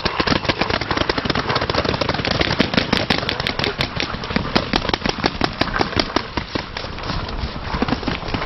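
Paintball markers firing in rapid strings of shots, many pops a second starting suddenly and going on throughout, with running footsteps in dry fallen leaves.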